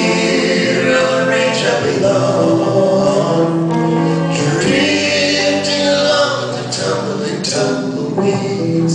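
Male voices singing a western song in close harmony with a live band, holding long notes.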